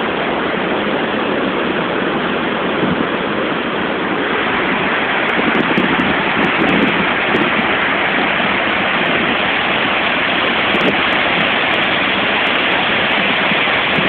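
Steady, even rush of a tall waterfall, water falling more than 25 metres into its pool, growing slightly louder a few seconds in.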